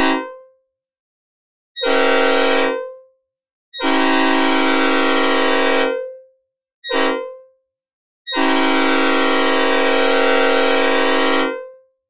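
Synthesized recreation of a Nathan P5A five-chime train horn in its 'mixed cast' tuning, sounding a steady multi-note chord. After the end of one blast come four more: two long, one short, one long, the grade-crossing pattern, each ending in a short reverberant fade.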